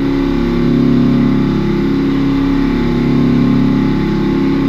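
3/4-inch Kennametal HARVI III end mill on a Makino CNC machining center roughing a pocket in 6Al-4V titanium under flood coolant: a steady, even cutting hum made of several low held tones over a hiss.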